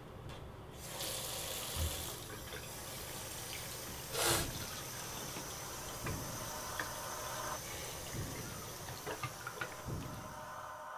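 Bathroom sink faucet turned on about a second in, its water running steadily into the basin while hands wash under the stream. One brief louder rush comes about four seconds in.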